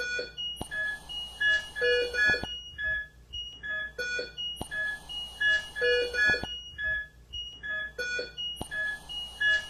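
Background music: a short, bright, bell-like melody over light percussion, the same phrase repeating about every four seconds.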